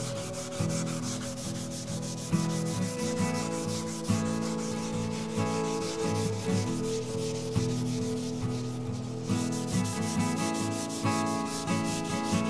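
Scotch-Brite pad rubbed back and forth by hand over a lathe's compound slide wet with lubricant, a steady scrubbing that takes off surface rust.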